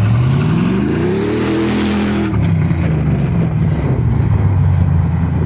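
Fox-body Mustang's 5.0 V8 running through new long-tube headers, X-pipe and mufflers: revved once, its pitch climbing for about two seconds, then dropping back to a steady idle.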